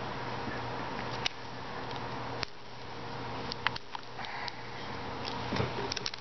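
Scattered light clicks and taps of fingers handling a tin can and pressing tape onto it, over a steady background hum.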